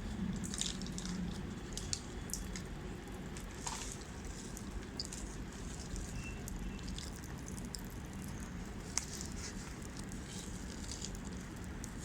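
Magic Pops popping candy crackling in a mouth: many small, irregular pops and clicks, scattered unevenly.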